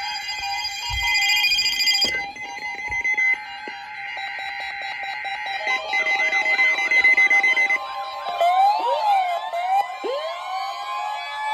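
Layered electronic alarm tones: steady pitched tones that change and switch on and off. About eight seconds in, siren-like tones join them, sweeping up and down in pitch.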